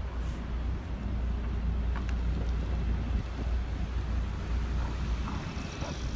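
A fishing boat's engine running with a steady low rumble as the boat comes slowly in toward the quay, with wind buffeting the microphone.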